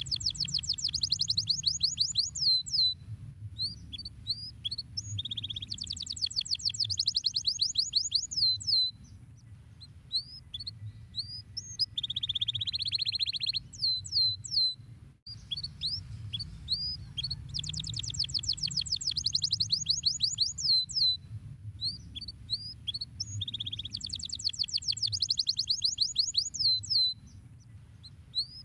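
Domestic canary singing: long, fast trills of rapidly repeated notes alternating with short chirps and a buzzier, lower trill, over a faint low hum. The same song passage starts over about halfway through.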